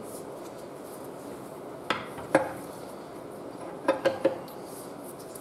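Wrench on the bolt of a crankshaft straightener clinking against the metal as the bolt is tightened to press a lawnmower's bent crankshaft straight: a few short metallic clicks, two about two seconds in and three close together near four seconds.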